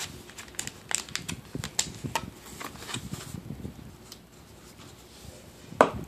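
Cardboard box and packaging being handled: a run of light rustles and clicks through the first three seconds, quieter after, and a sharper knock near the end.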